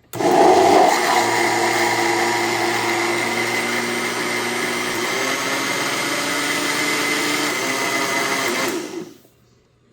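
Cadence Evolution 800 W blender switched on, running steadily as it blends pizza batter, with a louder surge in the first second, then switched off about nine seconds in.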